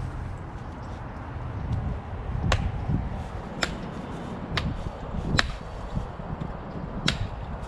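Axe striking wild pig bones on a wooden log, five sharp chops about a second apart.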